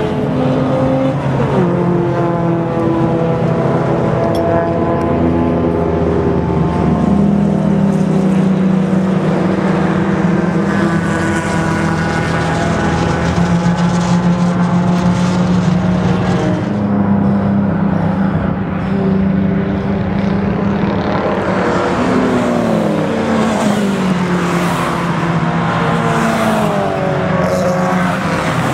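Race car engines running on a circuit, their pitch holding, stepping and climbing as the cars accelerate, with several falling notes near the end as cars go by.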